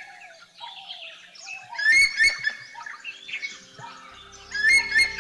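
Forest birds calling: a loud two-note call comes twice, about two and a half seconds apart, over lighter chirping. Low sustained music notes come in about four seconds in.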